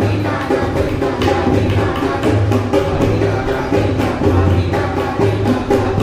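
Tabla and dholak drummed together in a fast, steady rhythm of crisp strokes, with deep bass strokes booming again and again underneath.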